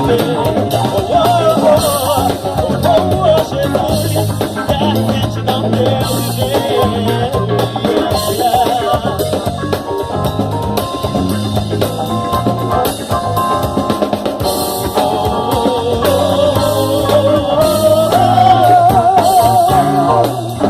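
Live gospel band playing an instrumental passage: drum kit and bass keeping a steady beat under keyboards, with a lead melody line that wavers with vibrato.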